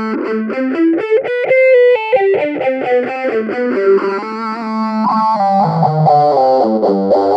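Electric guitar played through a Flatsons KE1 multi-effects pedal with its phaser modulation switched on: a lead line of quick single notes that moves lower near the end.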